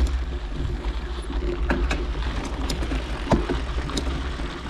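Steady low rumble of wind on an action camera's microphone, with a few sharp clicks scattered through it.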